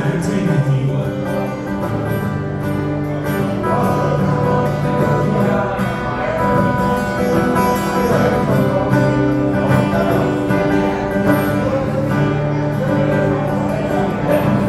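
Live solo acoustic guitar played by a man who sings along into a microphone.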